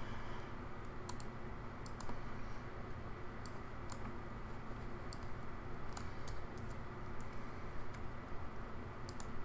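Scattered clicks of a computer mouse and keyboard at irregular intervals, some in quick pairs like double-clicks, over a steady low background hum.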